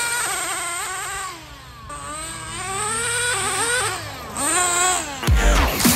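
Electric RC truck's motor whining, its pitch rising and falling again and again with bursts of throttle, dipping briefly about a second and a half in. Music with a heavy beat comes in near the end.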